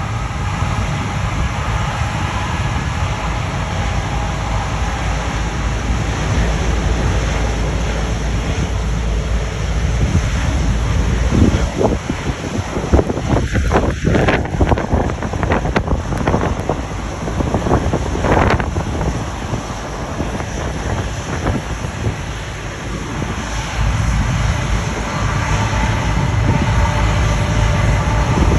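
Twin Pratt & Whitney turbofans of a Boeing 767-300ER running at taxi power: a deep, steady rumble with a whine on top. About halfway through, as the exhaust swings toward the microphone, gusts of jet blast buffet the microphone for several seconds.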